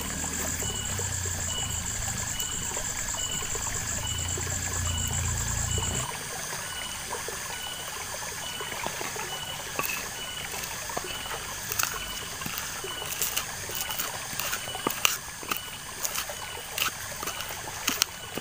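Trickling water and an insect's steady high trill at first, then these cut off suddenly. A wooden pestle then knocks and grinds bird's eye chillies and salt in a black mortar (cobek), in sharp irregular taps that come more often toward the end.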